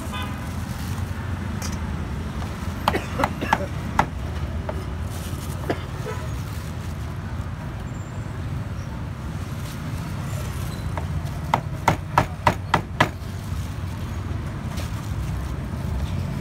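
Cleaver chopping meat on a chopping board: four strikes about three seconds in, one more a little later, and a quick run of about six strikes near the end, over a steady low hum of street traffic.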